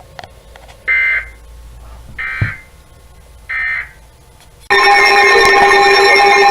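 Three short bursts of Emergency Alert System digital data code, each under half a second, typical of the end-of-message signal. About three-quarters of the way in, a loud, steady electronic alert tone starts, signalling the next warning.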